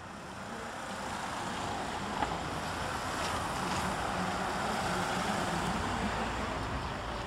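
Ambulances driving past on a road: engine and tyre noise swell as a Mercedes van ambulance passes close by, then ease slightly as the next vehicle approaches.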